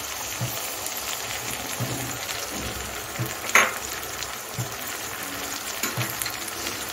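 Freshly added wet spice paste sizzling in hot mustard oil with fried onions in an aluminium kadai: a steady frying hiss. A single sharp click about three and a half seconds in.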